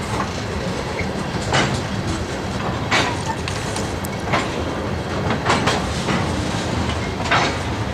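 Freight train of tank cars rolling past: a steady rumble of steel wheels on rail, with a sharp clack of the wheels every second or so.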